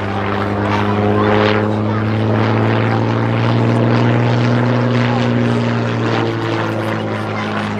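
Hawker Fury I biplane's supercharged Rolls-Royce Kestrel V12 engine and propeller running at display power during aerobatics, a steady engine note whose pitch rises a little midway and falls back near the end.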